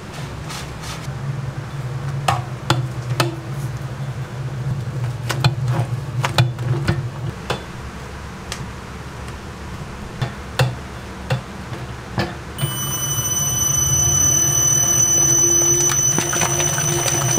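Large stainless-steel kettle mixer churning waffle batter: a steady motor hum with scattered clicks and knocks. About two-thirds of the way through, a high whine joins and the running gets louder.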